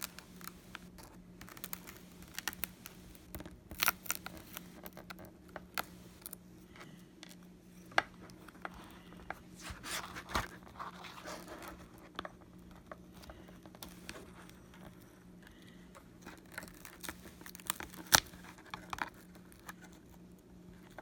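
Cracked iPad mini touchscreen glass crackling and snapping as it is pried up from its adhesive, in irregular sharp clicks with a few louder snaps, about 4, 8 and 18 seconds in. A faint steady hum runs underneath.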